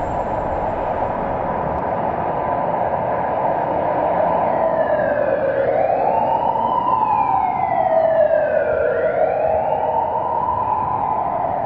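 A steady rushing noise. About four seconds in, a wailing tone joins it and slowly rises and falls in pitch, twice.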